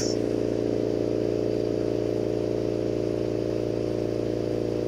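A steady low machine hum, several low tones together over a soft hiss, at a lampworking bench where the glass torch is burning.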